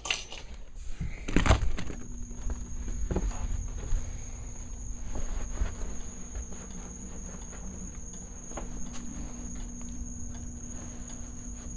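A door opens with a loud clatter about a second and a half in. Then a steady high-pitched drone of night insects sets in and holds, over a low steady hum and faint footsteps outdoors.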